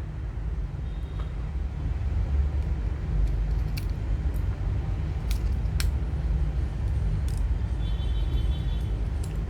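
A few light, sharp clicks of small parts and tools as a smartphone is taken apart, over a steady low rumble.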